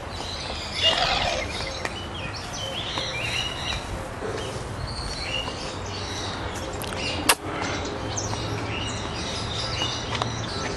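Birds chirping, many short high calls scattered over steady outdoor background noise, with one sharp click about seven seconds in.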